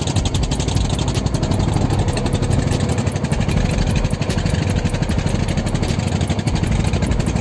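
Fishing boat's inboard engine running steadily, a rapid, even beat with a low rumble.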